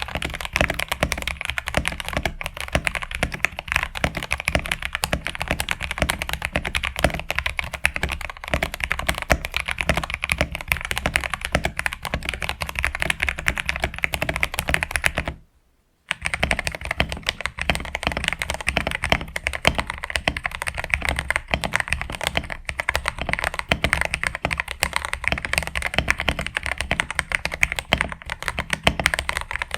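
Mechanical keyboard being typed on fast and continuously, a dense run of keycap clacks, as a keycap sound test. It cuts out for about half a second around the middle and then resumes.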